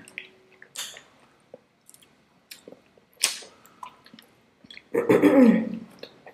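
Close-up mouth sounds of people eating Indian sweets: wet chewing with sharp lip smacks and clicks. About five seconds in there is a louder stretch with a short hum of the voice falling in pitch.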